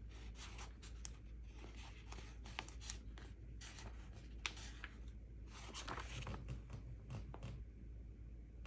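Paper stickers and planner pages being handled: scattered small clicks, crinkles and scrapes of paper.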